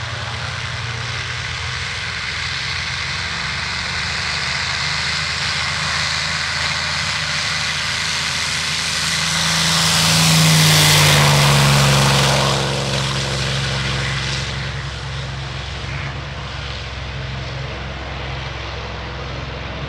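P-51D Mustang's Packard Merlin V-12 engine at full takeoff power during the takeoff roll. It grows louder as the fighter passes, its pitch drops as it goes by, and it fades somewhat as the aircraft lifts off and climbs away.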